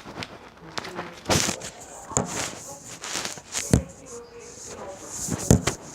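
Hands squeezing and stretching slime: irregular sticky clicks and wet pops, a few louder pops scattered through.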